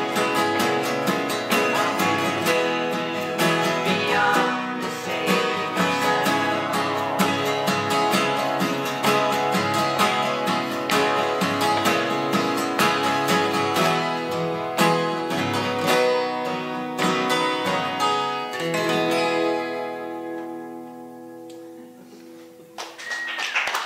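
Two steel-string acoustic guitars strumming and picking a song together. About 19 seconds in the playing stops on a last chord that rings and fades away.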